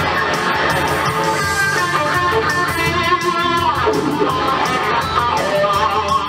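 Ibanez electric guitar playing an instrumental rock lead over a backing track with a steady drum beat, with a long falling glide in pitch about three and a half seconds in.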